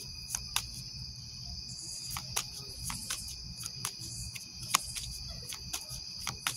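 Crickets trilling steadily and high, with a deck of tarot cards being shuffled by hand over it: irregular sharp clicks and taps of the cards, the loudest a little before the end.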